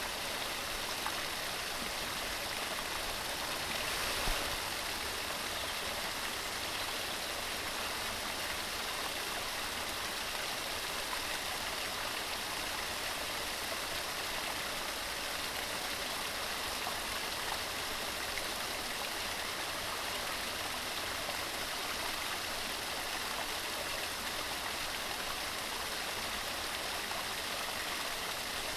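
Mountain stream running over rocks in a steady, even rush of water, with a brief swell about four seconds in.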